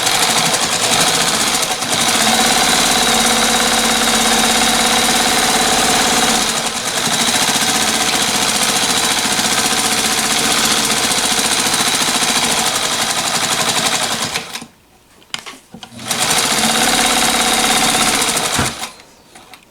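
Electric straight-stitch sewing machine running at a steady speed, stitching through several layers of muslin. It stops about fourteen and a half seconds in, then runs again briefly for about three seconds and stops.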